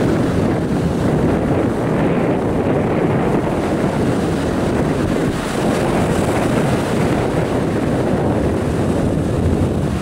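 Wind buffeting the microphone over the steady wash of surf breaking on the shore.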